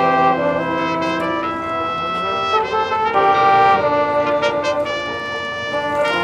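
High school marching band's brass section playing held chords that change every second or so, with a few percussion strikes.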